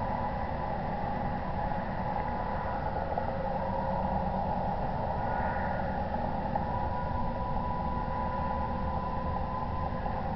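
Steady background hiss and faint hum through a security camera's microphone, with no distinct event.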